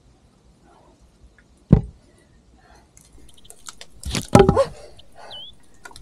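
A dull thump about two seconds in, then a loud cluster of knocking and scraping about four seconds in as a python pushes against the camera.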